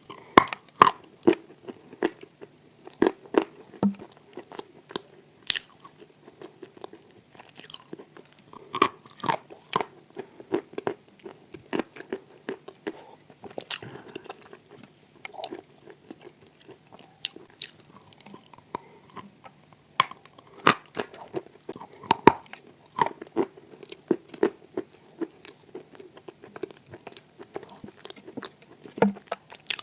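Close-up crunching and chewing of wet chalk in clay paste, with irregular sharp crunches from bites and softer moist chewing between them.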